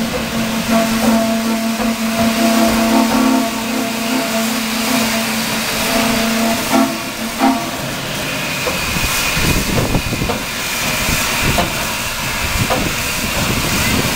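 Steam locomotive whistle held in one long steady blast that stops about seven and a half seconds in, followed by steam hissing and a low rumble from the engine. The engine is the Western Maryland Shay geared steam locomotive "Mountain Thunder".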